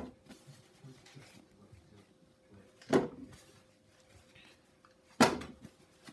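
Peeled potato pieces dropped one at a time into an ActiFry's pan: two sharp thuds with a short ring, about two seconds apart, with faint rustling of kitchen paper between them as each piece is patted dry.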